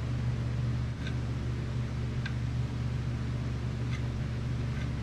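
A steady low mechanical hum runs throughout. Over it come a few faint, short clicks as a small metal spatula spreads putty on a 3D-printed part.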